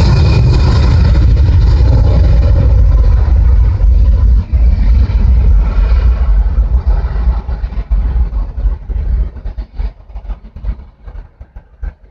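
Four-engine Airbus A340 jet engines roaring at takeoff thrust, heavily distorted by a cell phone microphone. From about two thirds of the way in, the roar fades and breaks into a choppy sputter. That sputter comes from the phone's audio processing, not from any engine trouble.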